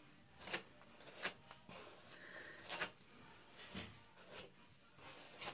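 Faint swishing strokes through long hair, about six, irregularly spaced, as the hair is brushed smooth.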